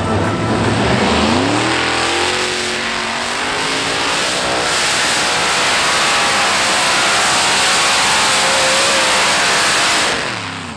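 Heavy-modified pulling tractor's engines climbing in revs about a second in, then held at full throttle with a dense, raspy note under load, before the throttle closes near the end and the engine note falls away.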